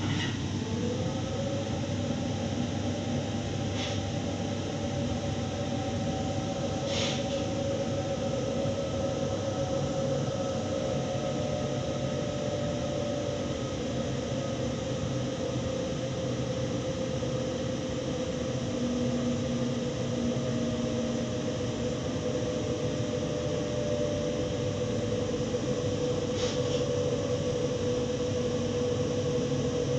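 Inside a moving Waratah Series 2 electric train: a steady running rumble with a motor whine that comes in about half a second in and sinks slowly in pitch. A few brief, sharp clicks sound over the top, around 4 s, 7 s and near the end.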